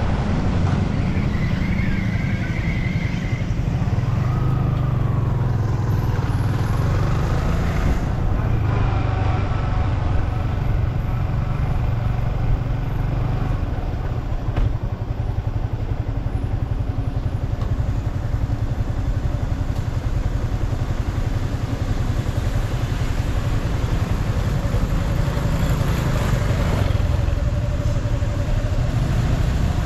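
Yamaha M-Slaz motorcycle's single-cylinder engine running under way, with steady wind and road noise. The engine pitch rises and falls with the throttle and climbs near the end.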